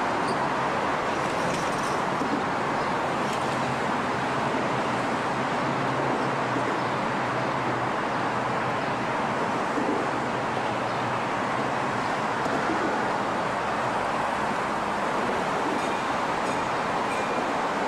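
Steady outdoor traffic noise: an even, unbroken rush with no distinct events, with a faint low hum in the first half that then fades.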